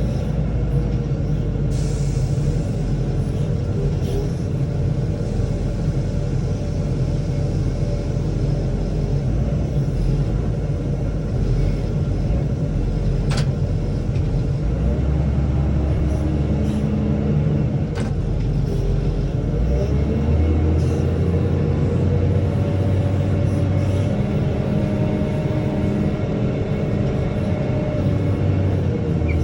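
Bale wagon's engine running steadily while it picks up hay bales, its pitch shifting a little twice. Two sharp clanks of machinery come in the middle.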